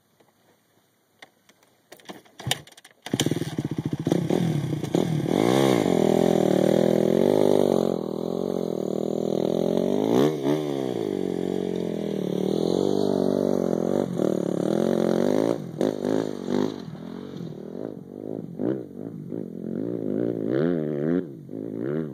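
Motorcycle engine starting up loudly about three seconds in, revving with the pitch climbing and dropping repeatedly through the throttle and gears. A quick sharp rise and fall in pitch about ten seconds in as it rides past. It then runs on more unevenly in short bursts of throttle.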